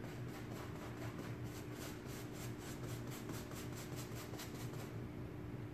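Paintbrush scrubbing paint into upholstery fabric, a rapid scratchy rhythm of about four or five strokes a second that stops near the end, over a steady low hum.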